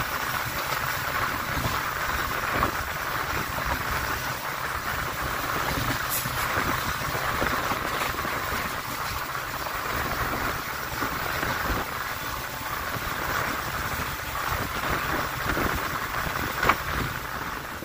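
Passenger train running along the track, heard from on board: a steady rolling rush with a few sharp clicks, the loudest near the end.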